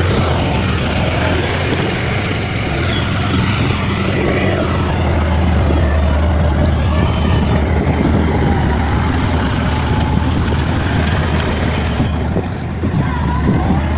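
Bulldozer's diesel engine running steadily with a deep drone, easing briefly about twelve seconds in.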